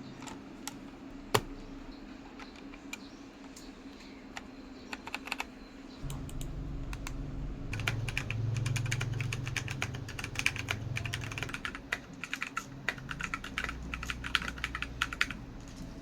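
Mechanical keyboard being typed on: a few scattered keystrokes at first, then about seven seconds of fast, continuous typing that stops shortly before the end.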